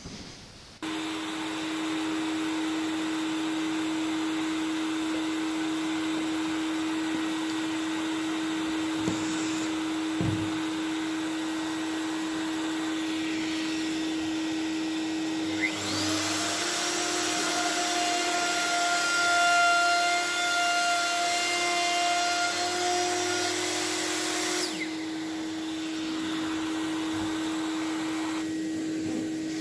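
A dust-extraction vacuum switches on about a second in and runs steadily throughout. About halfway through, a plunge router spins up with a rising whine and runs at a steady high pitch for about nine seconds while its 3/8-inch straight bit cuts a round hole through the wooden slide in a jig. It then switches off, leaving the vacuum running.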